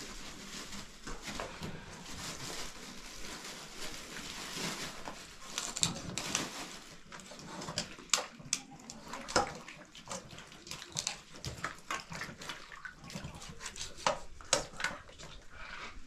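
Hands rinsing and working raw meat in a bowl of water: a steady wet washing noise at first, then many short sharp wet clicks and splashes from about five seconds in.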